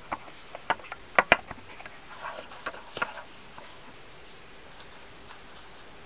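Hard plastic toy parts of a Fisher-Price Woodsey log tree house clicking and knocking together as they are handled: a quick run of light clicks, the two sharpest about a second in, with a soft rustle around two seconds, then it falls quiet at about three seconds.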